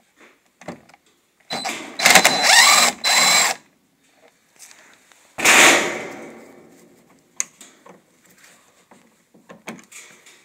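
A cordless drill-driver runs in three short bursts about two seconds in, its whine rising and falling in pitch, as it works the screw holding the VW T25 door handle. A single loud knock follows about five seconds in and dies away, then a few light clicks.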